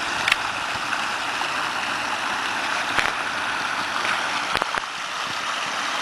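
Water of a small pondless waterfall splashing and gurgling steadily down stacked rocks into a gravel basin, with a few sharp clicks over it.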